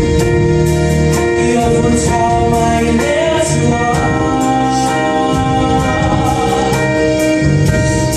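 A small vocal group singing a gospel song live with a band of keyboards and drums: long held chords over a steady beat of drum and cymbal strikes.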